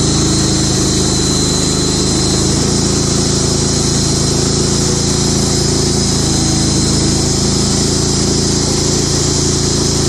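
Portable band sawmill's gas engine running steadily under load as the band blade cuts lengthwise through a Western hemlock log, with a thin high whine above the engine.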